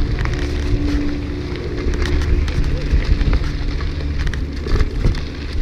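Mountain bike running down a rough, bumpy dirt trail: tyres crackling over dirt and gravel, with constant clicks and rattles from the bike over a low wind rumble on the microphone.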